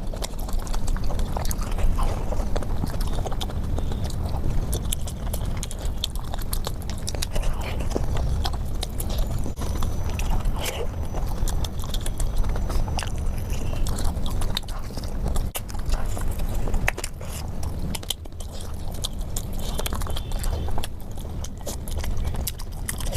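A person chewing and biting food close to the microphone: wet mouth sounds with many small clicks and crunches throughout.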